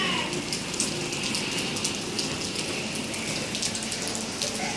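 Steady rain falling, with a constant hiss and many small drop impacts splashing on surfaces.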